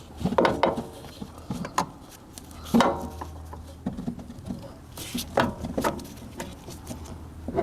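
Irregular clicks, knocks and short rattles of hands working at an RV generator's spin-on oil filter while removing it.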